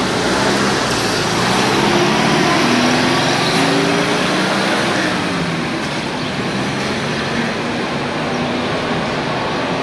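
Road traffic at a tunnel mouth: a pickup truck comes out of the tunnel and drives past close by, its engine note climbing and then falling away after it passes, over a steady rush of road noise.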